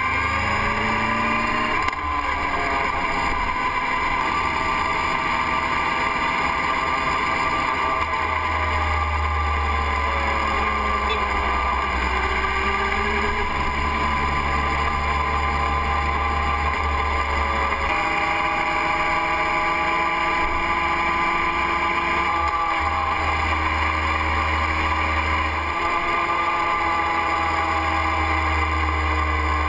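Motorcycle engine running with wind noise, heard from a camera mounted on the bike while riding. The engine note dips and rises again about ten seconds in, and the sound changes abruptly a few times.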